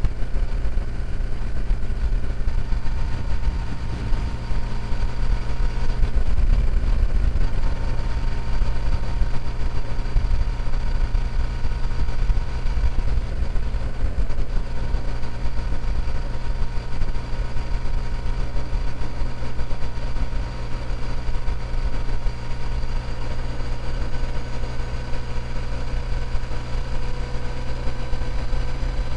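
Motorcycle engine running at a steady cruise on the highway, with heavy wind rush over the microphone.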